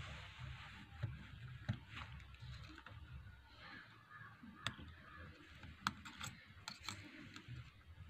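Faint handling noises from working inside an opened tablet: light taps and a handful of sharp little clicks of fingers and tools on its board and frame, mostly in the second half, over a low hiss.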